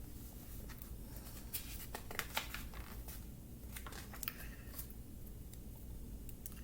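Faint paper rustling and handling, with scattered small clicks, over a low steady room hum.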